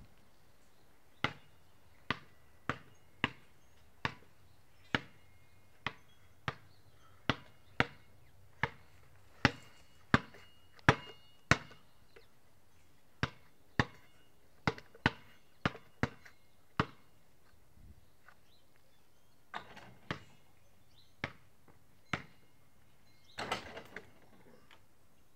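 A basketball bouncing on a concrete driveway as it is dribbled, sharp single bounces at about one and a half a second. The bouncing pauses a little past halfway, resumes with a few bounces, and ends with a quick cluster of hits.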